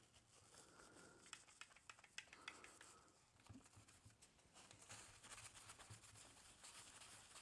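Faint rubbing of a paper task wipe over the plastic case and screen of a battery charger, with a few soft clicks of handling about one to two and a half seconds in.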